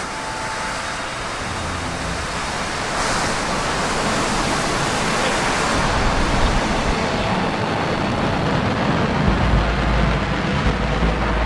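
Rocket engine roar from a New Shepard booster in flight: a steady, dense rushing noise that grows a heavy low rumble about nine seconds in.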